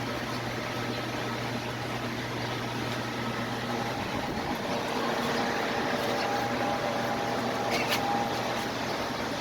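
Steady background hum and hiss, as from a running machine or distant traffic, with a single short click about eight seconds in.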